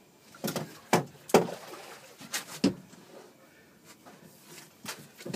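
Sharp knocks and clunks on the boat, about six of them, irregularly spaced and loudest in the first three seconds.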